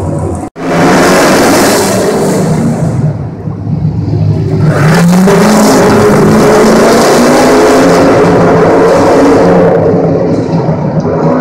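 Ken Block's Hoonicorn Mustang V8 revving hard. The sound cuts out briefly about half a second in. The engine note climbs about four to five seconds in and then holds loud at high revs, easing a little near the end.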